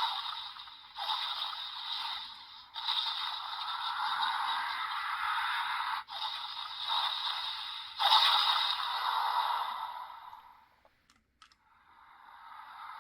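Sound effects from the small speaker of a Premium DX Boost Mark IX Raise Buckle toy set to its Mark III mode, a new effect starting with each press of its side button, several in a row. They fade out about ten and a half seconds in, a brief click follows, and another effect begins near the end.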